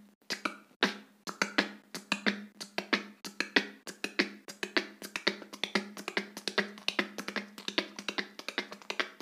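Beatboxer repeating the TkK pattern at speed: a rapid, even run of sharp mouth clicks made of a T hi-hat, an outward K snare and a K rim shot, several strokes a second.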